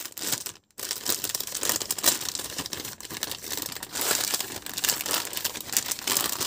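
Clear polythene bag crinkling and rustling as an amplifier board is handled and slid out of it, with a brief pause just under a second in.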